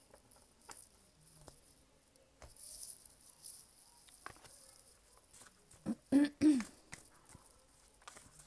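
A deck of tarot cards being handled and shuffled: light scattered clicks and taps of cards, with a brief hiss of cards sliding about three seconds in. About two-thirds of the way in come two short, louder sounds that drop in pitch.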